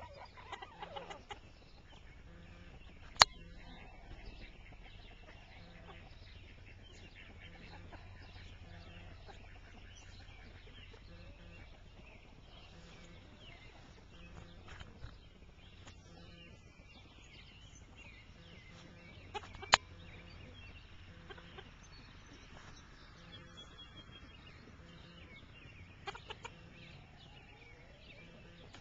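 Silkie chickens clucking softly now and then. Two sharp clicks, one a few seconds in and one past the middle, are the loudest sounds.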